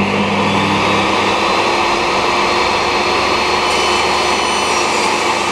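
Table saw running steadily, its blade cutting a length of timber into a thin strip.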